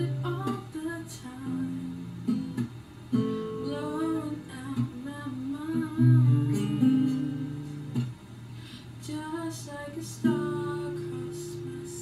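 Acoustic guitar strummed as song accompaniment, with a woman's voice singing softly over it in places.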